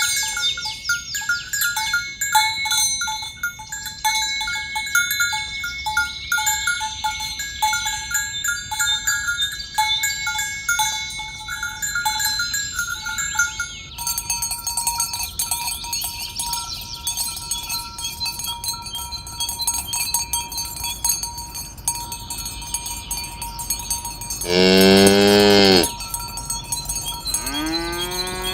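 Bells on the cattle clink and jangle as the herd moves along. Near the end a cow moos loudly for about a second and a half, and another moo with a rising pitch starts just before the end.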